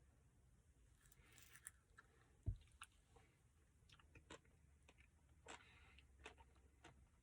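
Faint chewing of a chocolate brownie Blizzard, with scattered small wet clicks and one low thump about two and a half seconds in.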